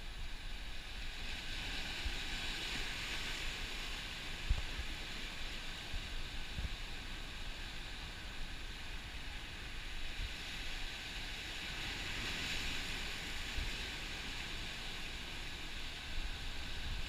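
Ocean surf breaking and washing through black volcanic rocks: a steady rush of foaming water that swells twice, with low wind buffeting on the microphone.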